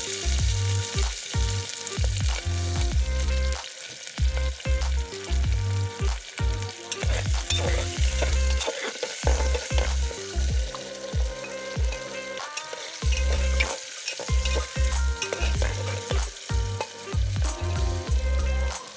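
Food frying and sizzling in a pan while it is stirred, with repeated scrapes and knocks of the stirring spoon against the pan.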